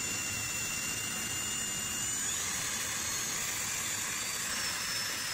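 Electric drill with a mixing paddle running steadily in a can of thick oil: a steady whir with a high whine that steps up slightly in pitch about two seconds in.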